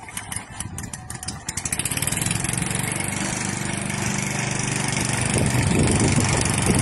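Ryobi petrol push lawn mower being pull-started: a rapid chatter of cranking for the first second and a half, then the engine catches and runs steadily, getting a little louder as it is pushed along.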